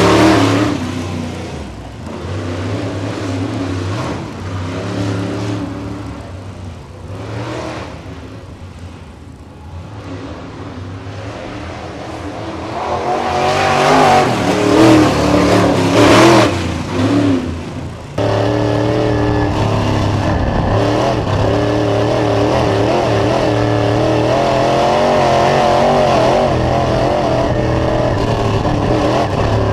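Dirt late model race car with a 602 crate V8 engine running practice laps. It passes close and loud at the start, fades as it goes around the oval, and swells again as it comes by a second time. About eighteen seconds in, the sound switches abruptly to a steady, even engine drone heard from inside the car's cockpit.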